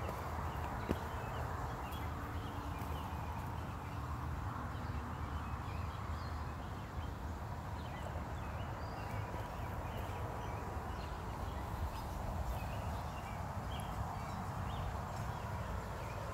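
Outdoor garden ambience: scattered short, faint bird chirps over a steady low rumble.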